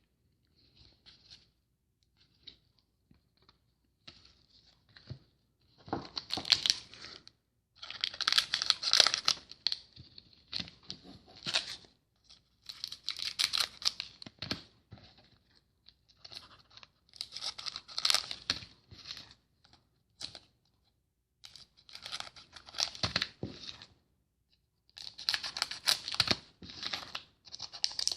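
Foil trading-card pack wrappers being torn open and crinkled, in several separate bouts of tearing and rustling with short pauses between.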